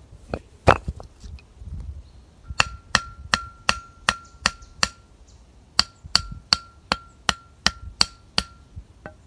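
A single heavy knock less than a second in, then hammer blows on metal in two quick even runs of seven and eight strikes, nearly three a second. Each blow leaves a brief metallic ring, as when a nail is being driven.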